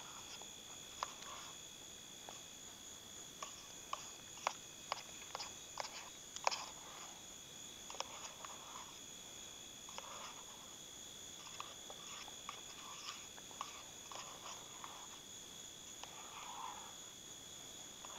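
A long metal spoon stirs rice in a metal canteen cup, with irregular clinks and scrapes against the cup's sides, most frequent a few seconds in. Behind it, night insects keep up a steady high trill.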